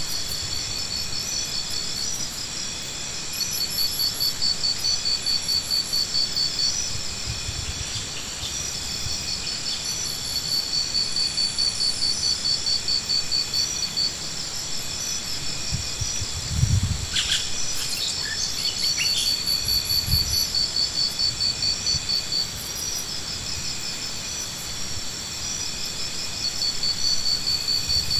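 Chorus of insects trilling steadily in fast, high-pitched pulses, several at different pitches overlapping. A couple of dull low thumps come past the middle.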